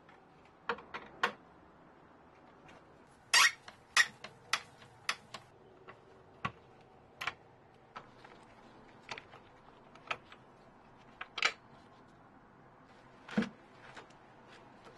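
Scattered sharp clicks, clinks and taps of a screwdriver and the hard plastic starter housing of a Stihl HS45 hedge trimmer as its screws are backed out and the housing is handled, with a duller knock near the end.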